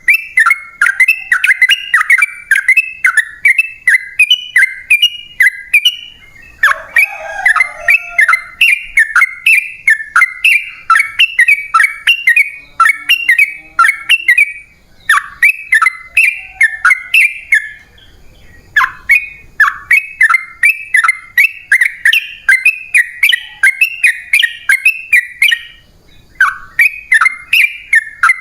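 Yellow-vented bulbul (trucukan) singing a long, fast run of bubbly, chattering notes. The run breaks off for brief pauses a few times and starts again.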